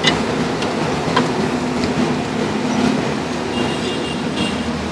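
Steady low rumble of a busy street market, with a few light knocks from the wooden chopping block, the clearest right at the start.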